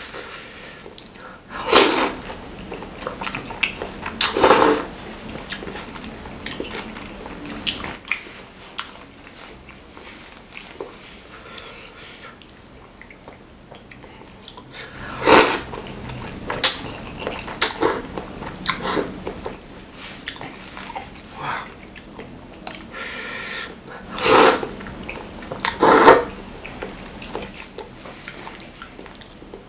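Close-miked eating of spicy chicken noodles (mie ayam): several short, loud slurps of noodles spread through, with quieter chewing and wet mouth sounds between them.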